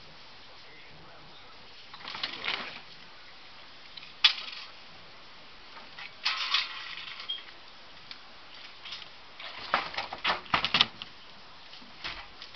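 Homemade lever lifting tool being worked by hand to raise a wooden platform: sharp clicks and knocks of metal and wood in irregular clusters, with a dense run of them around ten seconds in.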